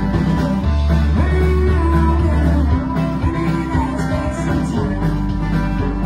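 Live band playing a country-tinged rock song: banjo strumming over drums and bass, with a voice singing for a few seconds.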